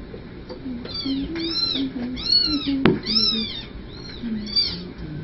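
Very young kittens mewing repeatedly: a string of high, arching cries from about a second in, with one sharp click near the middle.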